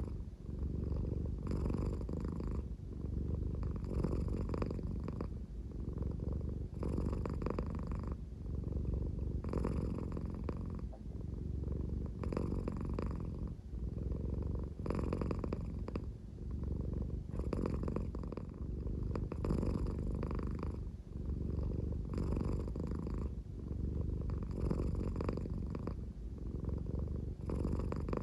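American Shorthair cat purring slowly in a low, snore-like rumble. A breathier rasp swells with each breath, about once every two seconds.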